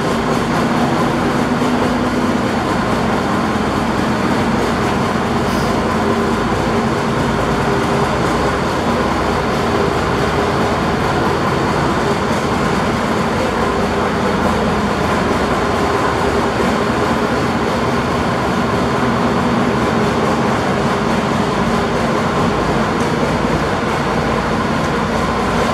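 Diesel engine of a 2004 MAN Lion's Coach R07 coach idling, a steady, even drone with a constant hum, running smoothly after a recent start.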